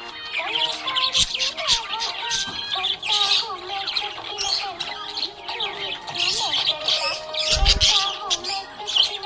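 Budgerigar chirping and warbling in a continuous, fast chatter, with a dull low thump about three-quarters of the way through.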